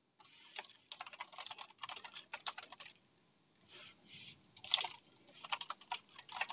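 Computer keyboard typing in quick runs of keystrokes, with a pause of about a second near the middle and one louder click just before the typing picks up again.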